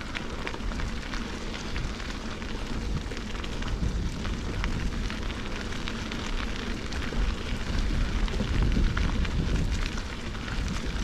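Mountain bike tyres rolling along a leaf-strewn dirt trail, a steady crackle of leaves and grit under the wheels over a low rumble.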